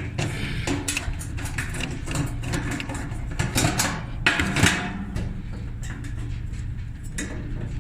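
Metal clicks, knocks and scraping of a wrench working on a clothes dryer's seized drum roller fastening, with a louder scrape about four and a half seconds in. A low steady hum runs underneath.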